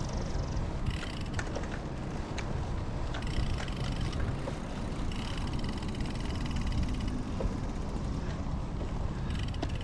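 Steady wind rumble on the microphone with road noise from a moving bicycle, and a few light clicks.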